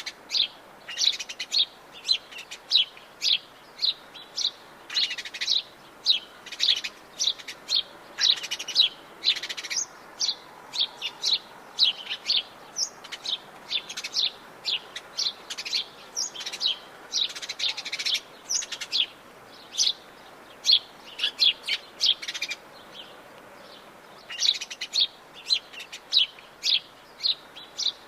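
Forest birds chirping and singing: a steady stream of short, high calls, one or two a second, with a brief lull about two-thirds of the way through.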